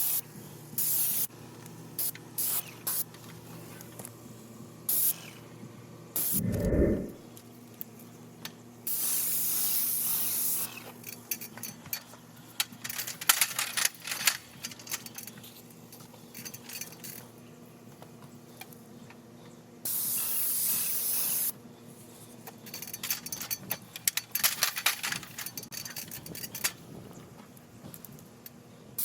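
Paint being sprayed onto a garage door in repeated bursts of hiss, each half a second to two seconds long, the longer passes lasting about two seconds. A brief low sound is heard about six and a half seconds in.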